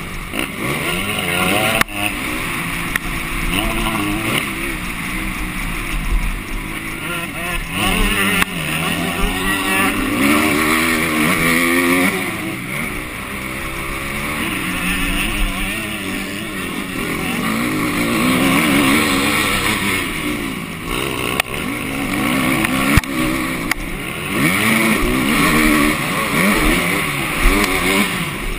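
MX2 motocross bike engine heard on board while racing, revving up and falling back over and over as the pitch rises and drops. A few sharp knocks stand out from the engine.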